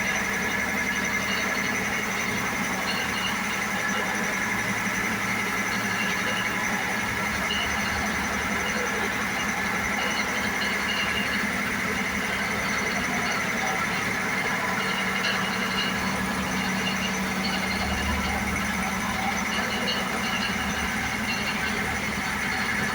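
A single motor driving three compressors, running steadily, with a constant high whine over the running noise.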